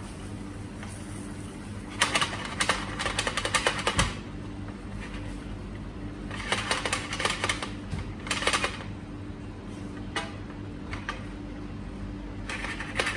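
A pan of thickened cream sauce being stirred with a utensil: quick clicking and ticking in three or four short spells, over a steady low hum.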